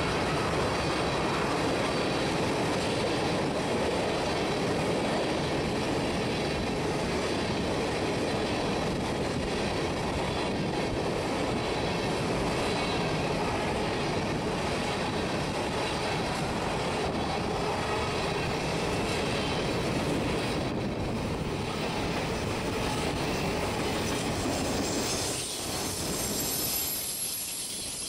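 Freight train of tank cars and autorack cars rolling past: a steady rumble and rattle of wheels on rail, with a thin high wheel squeal coming in near the end.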